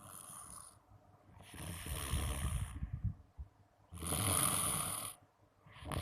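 A person snoring in sleep. There is a rough, rattling breath in from about a second and a half in, a long breath out around four seconds, and the next snore starting near the end.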